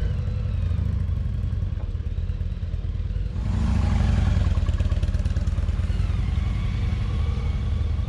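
Motorcycle engines pulling away on a dirt road, one bike towing a small trailer. About three seconds in the sound gets louder as a cruiser motorcycle rides close past, followed by a touring motorcycle.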